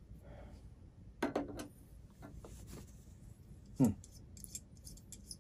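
Handling noises of a Tele Vue telescope eyepiece being worked in the hands and fitted to the telescope: small clicks and rubs of metal and plastic parts, with two short louder sounds, about a second in and just under four seconds in, and a run of fine clicks just after.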